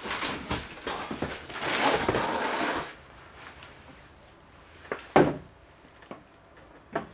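Scraping and rustling as a heavy Wattbike Atom indoor exercise bike is hauled out of its cardboard packaging, loudest about two seconds in, then a few sharp clunks a couple of seconds later as the bike is handled.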